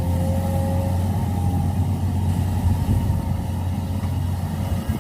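Heavy diesel engine running steadily at low revs, with a faint thin whine in the first second or so.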